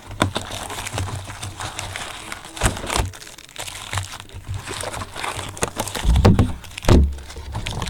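Plastic wrapping crinkling and tearing with many sharp crackles as a sealed box of baseball cards is unwrapped by hand, with a couple of heavier thumps of the box being handled near the end.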